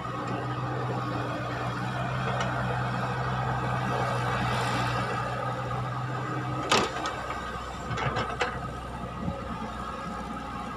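Caterpillar hydraulic excavator's diesel engine running under load as the machine swings and dumps a bucket of soil, with a steady low drone that drops away about two-thirds through at a single sharp knock, followed by a few lighter clicks as the arm swings back to dig.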